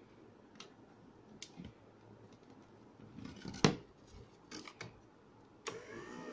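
Small clicks and knocks of spade connectors being pushed onto a switch's terminals and a plywood panel being handled, with one sharp knock a little past halfway. Near the end a drawn-out pitched sound starts whose pitch bends up and down.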